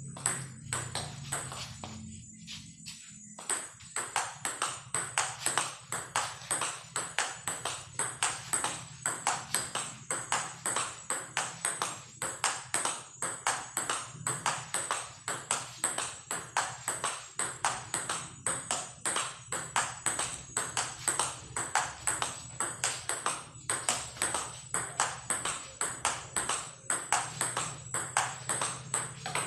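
Table tennis forehand topspin rally: the ball clicks off the two paddles and the table in a quick, even rhythm of about three to four knocks a second. The rhythm settles in after a brief lull a couple of seconds in.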